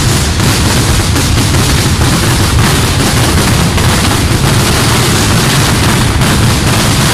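Firecrackers bursting at ground level in a rapid, unbroken barrage, the loud reports running into one another with no pause.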